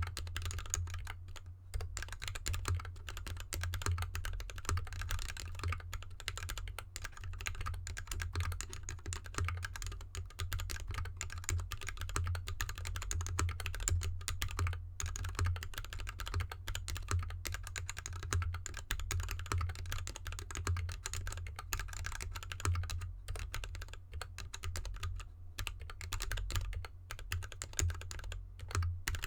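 Steady fast typing on a GK64X mechanical keyboard in an anodized aluminium case with dampening foam, its lubed Gateron linear switches and DSA keycaps clacking continuously, the keyboard resting on an artificial glass mat. A steady low hum runs underneath.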